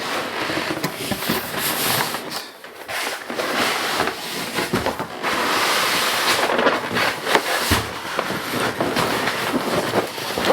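Packing material rustling and crackling continuously as it is handled and pulled apart during unboxing, with a short lull about two and a half seconds in.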